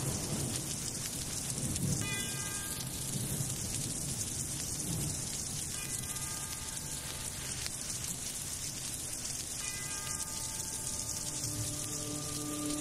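Steady heavy rain with low rolls of thunder, a sound-effect storm. A high pitched note sounds about every four seconds, and lower notes come in near the end.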